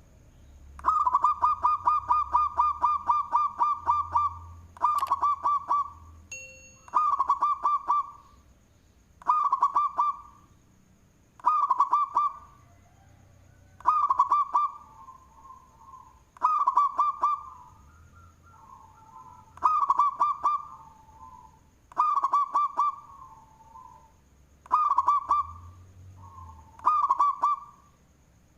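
Zebra dove (perkutut) cooing loudly. It opens with a long, rapid run of stuttering notes, then repeats short stuttering phrases about every two to three seconds.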